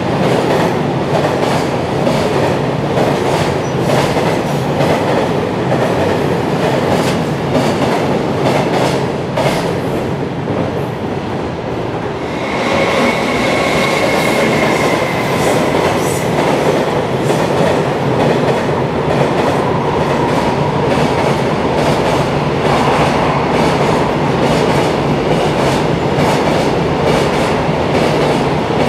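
Container freight trains passing close by on an elevated line, their wheels clattering continuously over the rail joints. About twelve seconds in the noise dips briefly, then the electric locomotive heading the next train passes with a faint high steady tone for a few seconds, and its wagons clatter on behind it.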